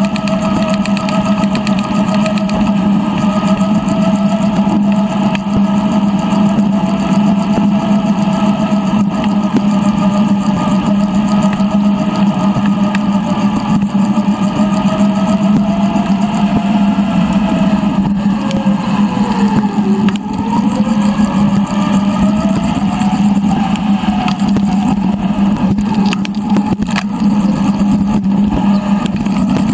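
Riding noise of a bicycle recorded by a GoPro and sped up threefold: a steady hum with tyre and wind noise. A fainter whine dips in pitch about two-thirds of the way through, then climbs again as the speed changes.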